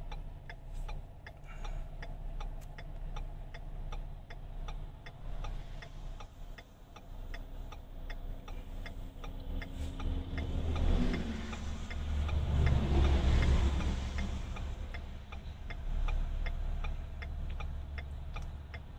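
A car's indicator flasher ticking steadily and quickly inside the cabin, over the low rumble of the engine idling. Around the middle a rush of noise swells and fades.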